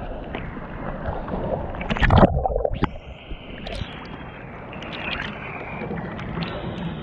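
Seawater sloshing and splashing against a camera held at the surface in rough ocean waves, with a loud splash about two seconds in and a short muffled moment just after.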